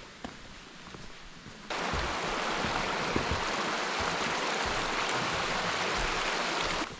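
Faint footsteps on a gravel path, then from about two seconds in a loud, steady rush of a rocky mountain stream flowing over boulders, which cuts off abruptly just before the end.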